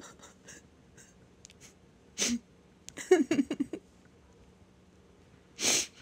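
A woman crying between words: a sharp breath or sniff about two seconds in, a shaky, wavering sob about a second later, and another sharp breath near the end.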